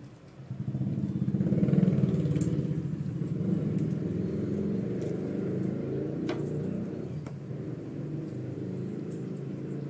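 An engine starts up about half a second in and keeps running with a steady low hum. Two faint clicks come later.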